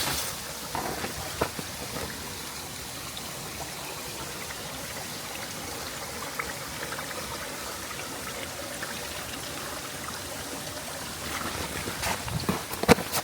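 Steady rush of running water from a partly frozen mountain waterfall, with a few sharp knocks near the end.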